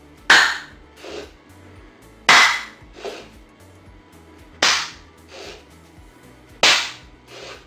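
Four sharp hand claps about two seconds apart, each followed under a second later by a softer, weaker sound. The claps are commands picked up by the Edison V2.0 educational robot's clap-detecting sound sensor.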